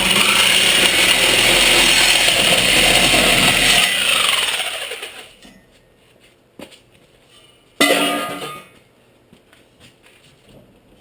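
Reciprocating saw (Sawzall) running and cutting through exhaust pipe for about four seconds, then spinning down with a falling whine. A second short burst of the saw comes near eight seconds in.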